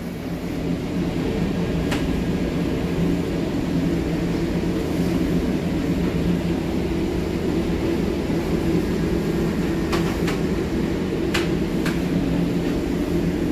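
Steady hum and whir of bakery machinery running, with a few light clicks near the end.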